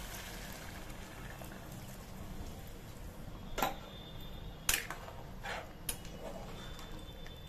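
Water poured into an aluminium pressure cooker of thick curry, followed by a steel ladle stirring and clinking against the pot about four times in the second half.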